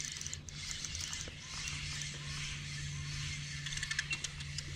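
Spinning reel being cranked to retrieve a small hooked bass: a soft, steady mechanical winding with light ticks toward the end.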